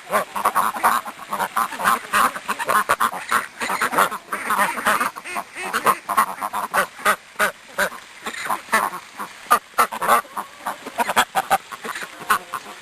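A group of ducks quacking, many short calls overlapping in a constant chatter.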